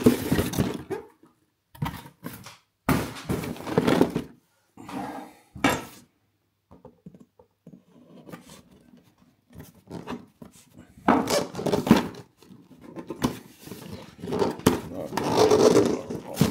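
Cardboard packaging handled and opened by hand: rustling, scraping and knocking of card in separate bursts, with a nearly quiet spell about six seconds in and the loudest handling near the end.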